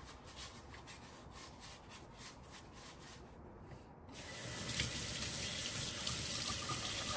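A pear's skin being scrubbed by hand with salt, a soft repeated rubbing. About four seconds in, a kitchen tap is turned on and water runs steadily into the sink.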